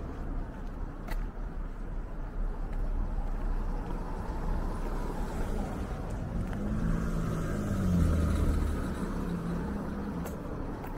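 A car drives past on the street. Its engine hum swells to its loudest about eight seconds in and then fades, over a steady low street rumble.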